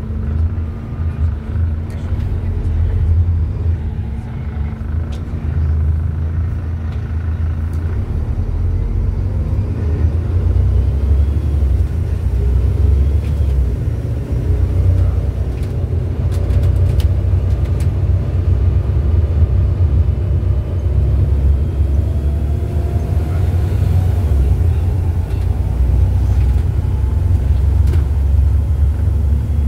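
Volvo B7TL bus's 7.3-litre D7C diesel engine heard from inside the passenger saloon: a steady low rumble at first, then, from about ten seconds in, a note that rises again and again as the bus accelerates through its six-speed ZF automatic gearbox.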